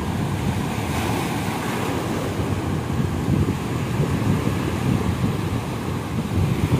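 Ocean surf breaking and washing up a sandy beach in a continuous rush, with wind buffeting the microphone.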